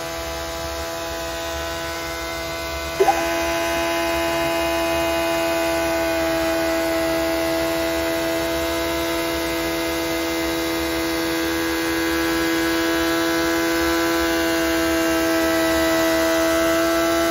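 Honda CBR600RR inline-four race engine being run in on a chassis dyno, held at a steady 10,000 rpm: a steady high-pitched drone. About three seconds in there is a brief upward blip in pitch and loudness.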